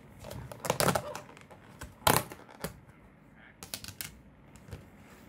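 Clear plastic takeaway container being opened and handled: the lid unsnapping and the thin plastic clicking and crackling in a run of sharp clicks, the loudest about two seconds in, with a few more near the end.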